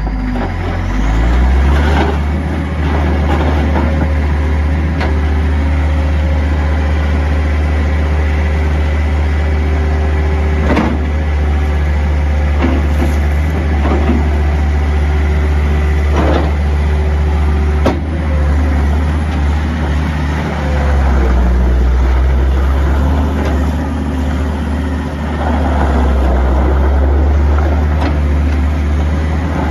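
John Deere 325 skid steer's 70 HP diesel engine running steadily, with a deep, even drone and a few sharp knocks. Its note shifts a couple of times in the second half.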